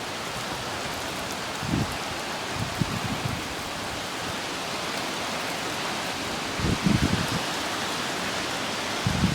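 Steady hiss of heavy thunderstorm rain, broken by a few brief low thumps about two, three, seven and nine seconds in.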